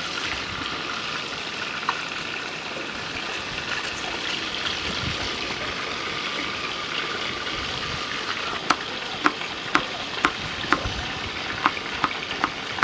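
China rockfish shallow-frying in a pan, a steady sizzle, with a knife chopping a bell pepper on a cutting board. Sharp knocks come about twice a second from about nine seconds in.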